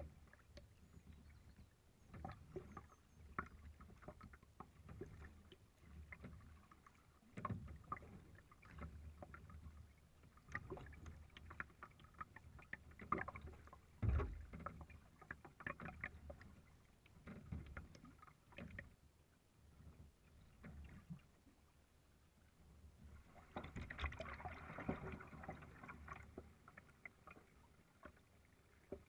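Kayak paddle blades dipping and pulling through calm sea water, faint, with a stroke every second or so and drips and splashes between. There is a low knock about halfway through, and a longer rush of splashing water from about 24 seconds in.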